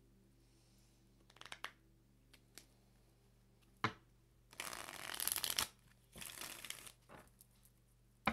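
A tarot deck being shuffled by hand: a few light ticks, a sharp click, then two spells of shuffling about a second long each, and a last sharp click at the end.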